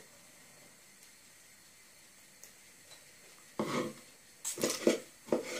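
Kitchen knife chopping soft soaked dried figs on a wooden cutting board: a quiet room for the first few seconds, then a quick run of knocks and cuts of the blade on the board in the last two seconds.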